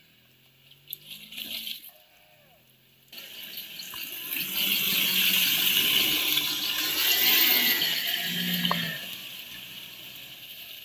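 Off-road vehicle driving through boggy water: a rush of splashing water starts about three seconds in, swells, and eases off near the end, over a low engine hum.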